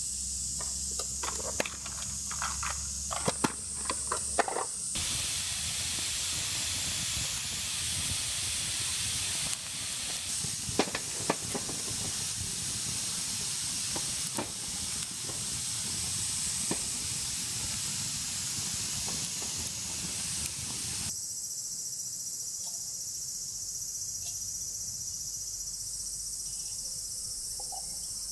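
A steady, even hiss that sets in abruptly about five seconds in and stops abruptly about seven seconds before the end. Before and after it, insects keep up a high-pitched drone, with a few small clicks near the start.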